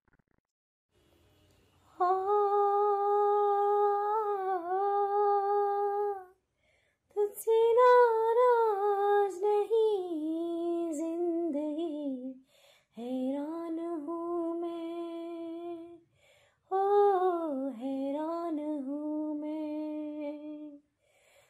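A woman's voice singing a slow melody alone, without accompaniment, in four long phrases of held and gliding notes with short breaths between them. It comes in after about two seconds of near silence.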